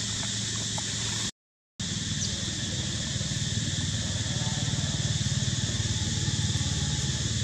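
Steady outdoor background noise: a low drone under a high, even hiss, cut by a brief dead silence a little over a second in.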